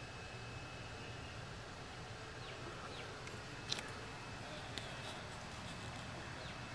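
Quiet outdoor background with a steady low hum, a few short bird chirps, and two sharp clicks about halfway through.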